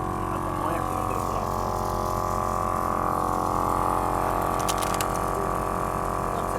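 Portable electric air compressor running steadily, with a constant motor hum over a rapid chugging from its piston, a few light clicks about five seconds in.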